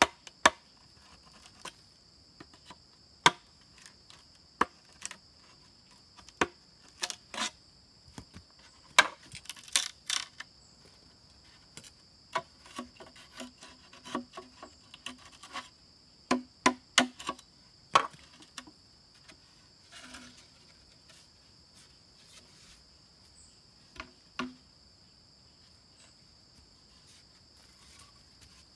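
A wooden mallet strikes the back of a machete blade to chop a slot into a green bamboo pole. The knocks are sharp and irregular, dense and loud for the first ten seconds or so, then come as lighter clusters of taps and a few single knocks. A steady high insect drone runs underneath.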